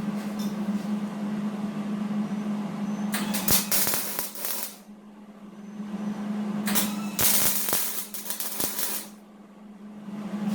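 Two short bursts of electric arc welding crackle and hiss, the first lasting about a second and a half and the second about two seconds, like tack welds on steel. A steady low hum runs underneath and drops away briefly after each burst.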